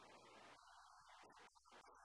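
Near silence: only faint, indistinct background sound.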